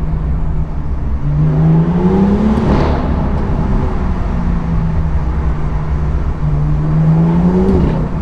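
BMW M2's N55 turbocharged straight-six through an M Performance exhaust, running loud under way. Twice the engine note climbs in pitch under acceleration for a second or two, then drops back as the throttle comes off.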